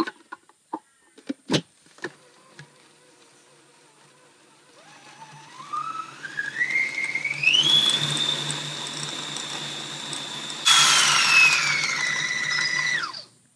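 After a few clicks, a food processor motor spins up with a rising whine and runs at a steady high pitch as it purees leafy greens, seeds, oil and lime into pesto. About two-thirds of the way through it grows louder and rougher, then its pitch drops before it stops suddenly near the end.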